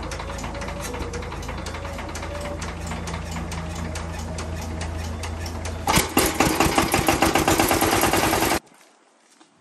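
The Kubota KNDR90 diesel engine of an old Kubota riding cultivator runs steadily with a knocking diesel clatter. About six seconds in it gets markedly louder, then the sound cuts off suddenly.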